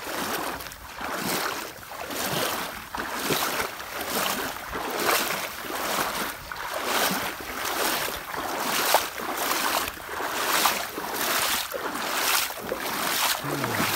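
Legs in chest waders wading through floodwater, each stride a swish and splash of pushed water, in an even rhythm of a little more than one stride a second.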